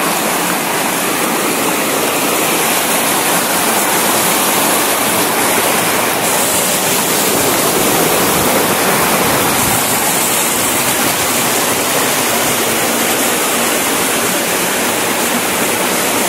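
Steady rush of a small waterfall: shallow water pouring over rock slabs and out of a concrete culvert.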